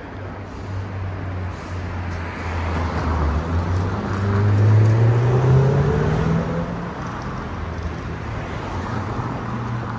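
A motor vehicle's engine accelerating close by, its note rising in pitch and loudest about halfway through, over steady street traffic.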